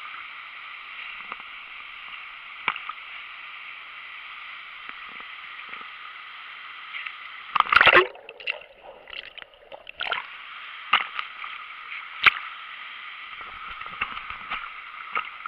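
Steady rush of waterfall water, broken just over halfway through by a loud splash as a jumper plunges in, followed by a couple of seconds of muffled gurgling and then a few sharp splashes.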